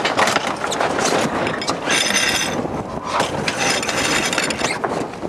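Sailboat sheet winch turning with its pawls clicking rapidly as a sheet is hauled in. It comes in two runs, about two seconds in and again from about three to nearly five seconds, over wind noise.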